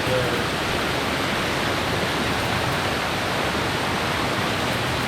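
Stream water rushing steadily at a trail crossing, an even unbroken noise.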